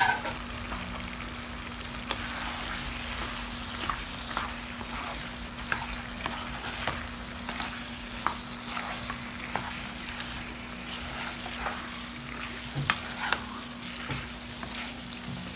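Prawns and green mango frying in oily spice paste in a nonstick frying pan, sizzling steadily, while a wooden spatula stirs them with scattered scrapes and clicks against the pan. A steady low hum runs underneath.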